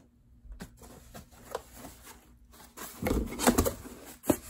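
Books and packaging being handled: faint light knocks, then a louder rustle about three seconds in and a sharp tap near the end.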